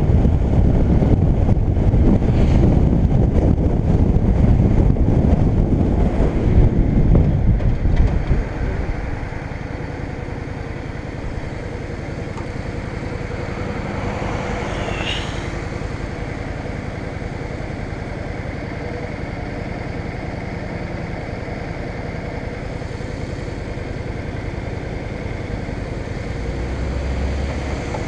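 Yamaha DragStar V-twin cruiser riding with wind rushing over the microphone, then slowing and idling steadily from about nine seconds in.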